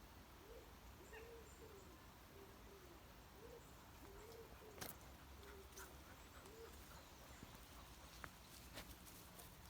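Faint repeated cooing of a pigeon or dove, soft low calls in a rhythmic phrase over the first seven seconds or so, with a few sharp faint clicks.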